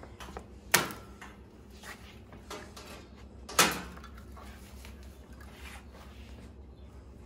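Two sharp snaps about three seconds apart as zip ties holding a dirt bike's front wheel in its shipping crate are cut with cutters, with quieter handling noise between.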